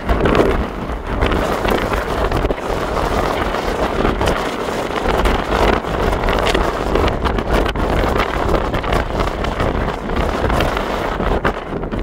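Wind buffeting the microphone on the open deck of a moving ferry. It makes a steady rushing noise with a low rumble that swells and dips in gusts.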